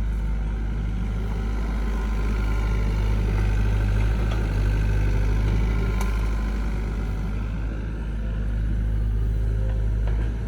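Diesel engine of heavy construction machinery running steadily with a deep, even drone. A single sharp click about six seconds in.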